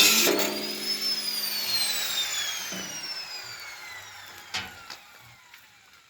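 Electric power tool winding down after being switched off: its whine rises briefly, then falls steadily in pitch and fades over about five seconds. Two short knocks come near the end.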